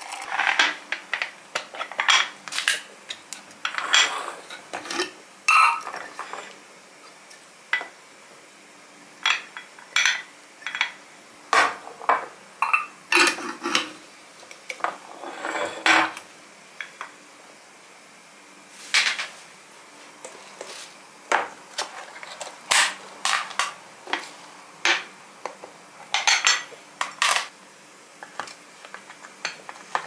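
Kitchen clatter of dishes and cutlery being handled and set down on a granite counter: many irregular clinks and knocks, some sharp and loud, with short quiet gaps between them.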